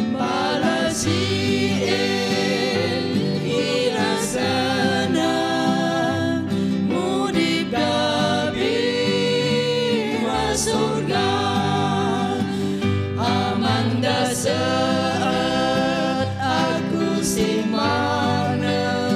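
A small mixed group of women's and men's voices singing a gospel hymn together into microphones, with acoustic guitar accompaniment.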